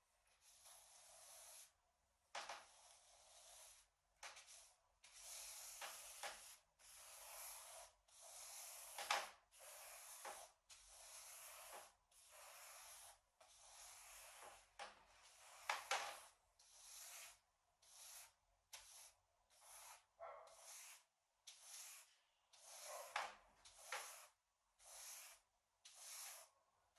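Wide flat brush swishing faintly across a painting's canvas, laying on a coat of varnish in quick successive strokes, about one a second, with an occasional light tap.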